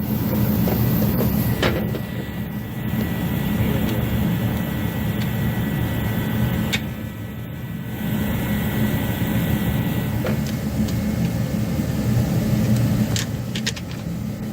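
A steady low mechanical drone, with a few faint clicks as small plastic washers are pressed into place.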